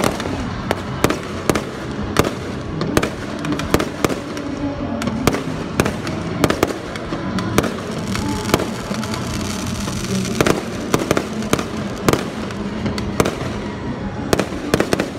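Fireworks display: a rapid, irregular string of bangs and crackles from bursting shells, several a second, over a steady background rumble.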